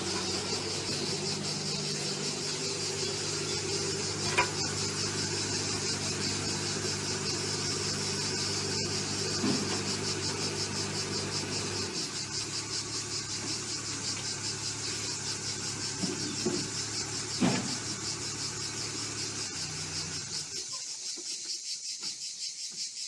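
A heavy machine's engine running steadily; part of its hum drops away about halfway through and the rest near the end. Throughout there is a steady high, pulsing buzz, and a couple of sharp knocks.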